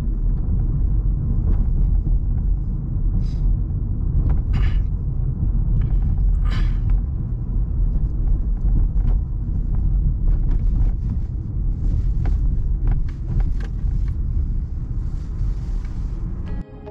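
Steady low rumble of a car driving, heard from inside, with a few short knocks or rattles over it.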